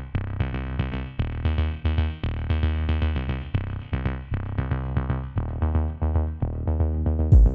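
Electronic background music: a synthesizer repeating quick pitched notes over a steady beat.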